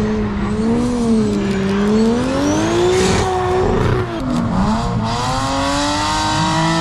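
Drift car engine revving hard at the limiter range, its pitch rising and falling as the car slides through the corner, dropping about four seconds in and then climbing again, with tyre noise building near the end.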